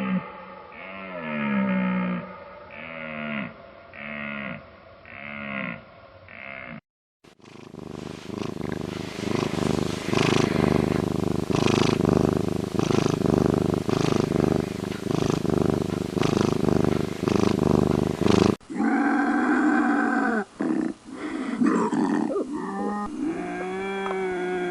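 Wild animal calls from three spliced recordings. First comes a run of short calls that each fall in pitch, about one a second. After a brief break there are about eleven seconds of dense, rough calling, then calls with a wavering pitch.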